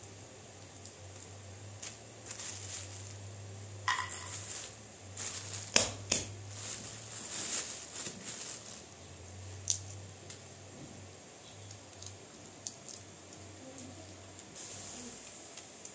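Walnuts being shelled by hand over a plastic bag: irregular small cracks and clicks of shell and a metal tool, with the plastic bag crinkling now and then. The sharpest crack comes about six seconds in.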